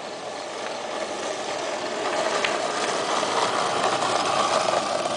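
Small wheels rolling past on pavement with a steady rattle, growing louder to a peak about four and a half seconds in and then starting to fade.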